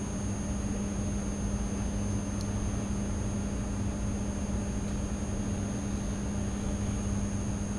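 Steady background hum with constant hiss and a faint high whine, unchanging throughout; a single faint tick about two and a half seconds in.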